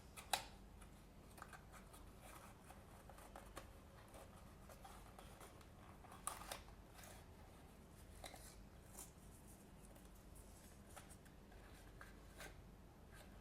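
Near silence with faint, scattered clicks and rustles of small objects being handled by hand, with a few slightly sharper ticks.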